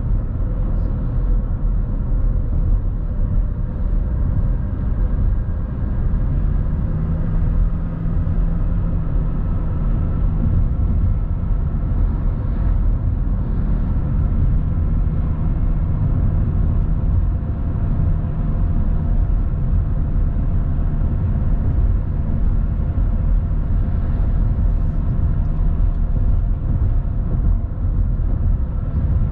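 Steady road and engine noise of a car driving, heard from inside the cabin: a low rumble with a faint hum that comes and goes.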